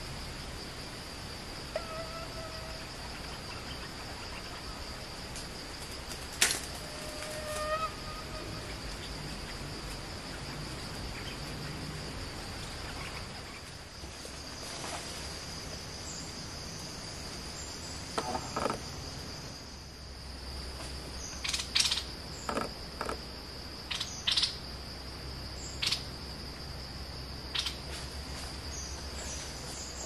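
Insects droning steadily at a high pitch in forest. Two short pitched whistles come about 2 and 8 seconds in, and a run of short, sharp sounds spreads over the second half.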